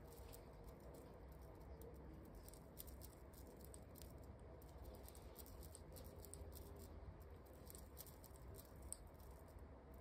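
Near silence, with faint, irregular light clicks and rustles of hand crocheting: a metal crochet hook working yarn in long-nailed fingers.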